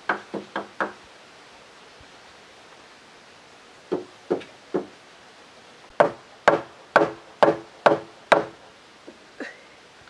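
Wooden mallet knocking timbers together to seat a notched beam joint. The strikes come in groups: four quick ones, then three, then six in a row at about two a second, and two lighter taps near the end.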